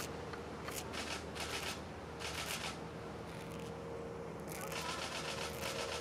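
Tree leaves rustling in gusts of wind, in short bursts of hiss that come and go several times. A faint steady hum runs underneath.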